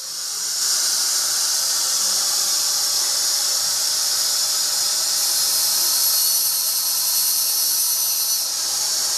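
Handheld electric angle grinder cutting steel welded-wire mesh: a loud, steady, high hissing screech that builds up in the first half second and then holds.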